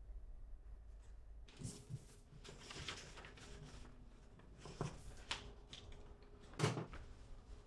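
Ballpoint pen scratching on paper in short irregular strokes, with light paper rustling, and a louder bump near the end.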